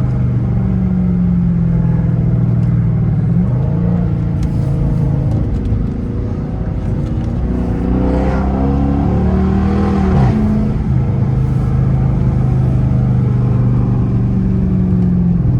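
Chrysler 300S's 5.7 Hemi V8 running under way. Its pitch climbs under acceleration through the middle and drops sharply at a gear change about ten seconds in, then it settles into a steady drone.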